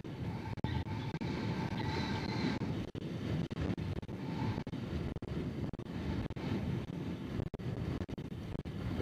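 Steady rumbling wind noise on a helmet-mounted camera's microphone while a horse canters, its hoofbeats under the wind.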